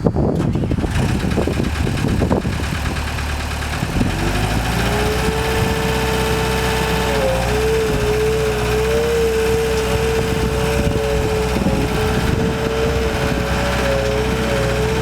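Gehl 5635 DXT skid steer's Deutz turbo diesel engine running. About four seconds in, a steady whine rises in over the engine and holds.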